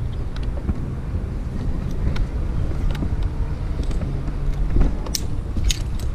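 Wind rumbling on the action camera's microphone, with a few sharp clicks and clinks in the last second or so.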